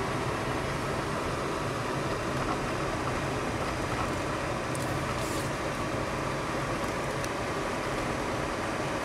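Citroën car driving at steady speed, its engine and road noise heard from inside the cabin as a constant, even drone.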